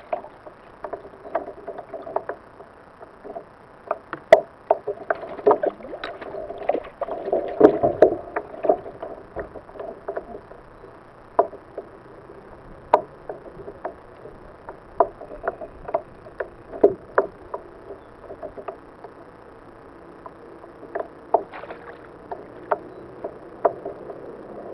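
Irregular knocks and clicks from a small northern pike being reeled in and handled at the side of a fishing kayak: rod, reel, lure and fish against the hull. The loudest knocks come about four and eight seconds in.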